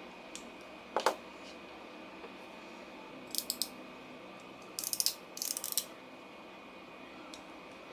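Ratcheting hand crimping tool clicking as cable lugs are crimped: a single sharp click about a second in, then two short runs of rapid clicks a few seconds later.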